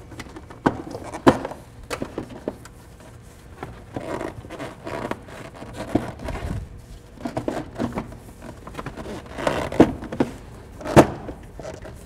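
Irregular knocks, clicks and rubbing of a car's air cleaner housing being put back together by hand over a new air filter, the lid seated back on the air box and the intake tubing fitted back on. The sharpest knocks come about a second in and near the end.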